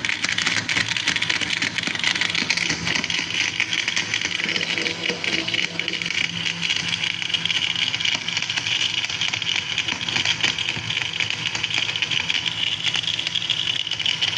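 Electric blender running steadily at speed, blending a thick milkshake of milk, bananas, dates, roasted chickpeas and jaggery in its jug.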